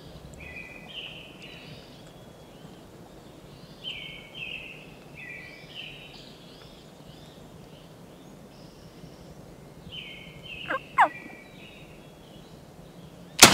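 Wild turkeys calling in three bouts of quick, stepped notes, then a single loud shotgun blast right at the very end.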